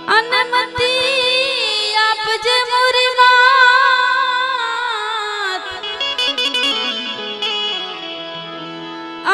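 A woman singing a devotional bhajan with instrumental accompaniment, her voice sliding and wavering through a long drawn-out phrase. The voice drops out about five and a half seconds in, leaving the accompaniment playing alone until she starts the next line at the very end.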